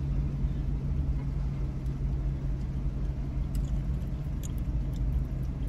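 Car engine running with a steady low hum heard inside the cabin, with a few faint taps.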